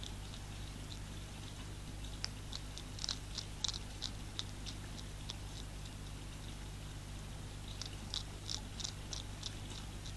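European hedgehog crunching dry food pellets, in two runs of quick, sharp bites: one starting about two seconds in, the other about eight seconds in. A steady low hum runs underneath.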